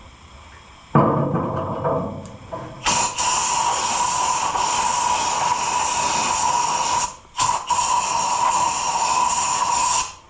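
WD-40 aerosol can spraying into a rusty, seized engine cylinder in a long hiss, starting about three seconds in with a short break partway through, flushing out loose rust. Some handling knocks and scrapes come before the spray starts.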